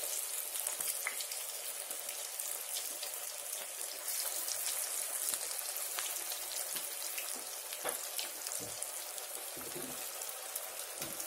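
Vadai (banana-flower and chana dal fritters) deep-frying in hot oil in a kadai: a steady sizzle dense with small, rapid crackles.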